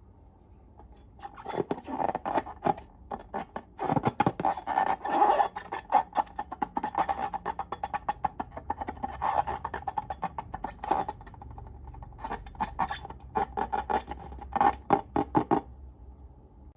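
Slime being squeezed and pressed, giving dense, irregular sticky clicks and pops that start about a second in and stop shortly before the end.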